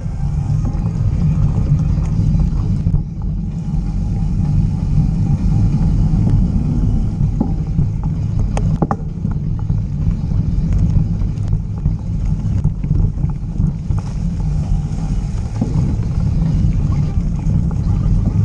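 Steady low rumble of wind buffeting an action camera's microphone together with mountain bike tyres rolling over a dirt trail, with a couple of sharp clicks or rattles from the bike about nine seconds in.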